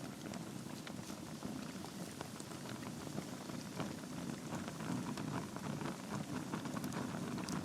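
Wood fire burning in a fireplace: a steady low rumble of flames with many small, sharp crackles and pops from the burning logs.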